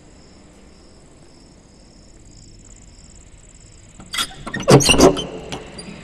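Loud rustling and scraping of a phone being handled, rubbing against fingers and clothing, from about four seconds in for a second and a half. Behind it, insects keep up a steady pulsing chirp.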